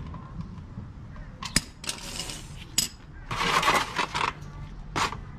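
A few sharp metal clinks and two scraping stretches: a socket ratchet set down on a concrete floor and a plastic oil drain pan slid into place under the engine.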